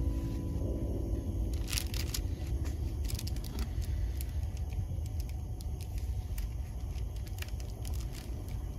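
Low steady rumble, with crisp paper rustling and a few light clicks as a paper doughnut wrapper is handled on a plate and a fork cuts into the doughnut.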